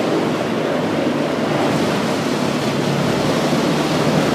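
Steady rushing noise of a canal boat under way, with no single sound standing out above it.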